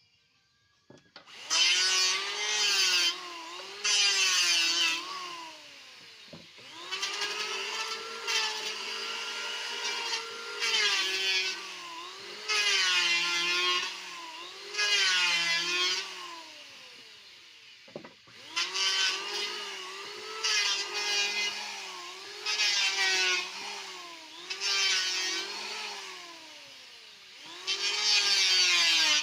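Electric wood planer (mesin serut) shaving a wooden paddle. The motor starts about a second and a half in. Its pitch dips each time the blades bite into the wood, and loud passes of shaving noise come every second or two.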